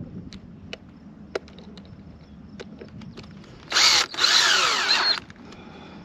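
Cordless drill driving a screw into a wooden bird house: a short burst about four seconds in, then a longer run of about a second. A few light clicks come before it.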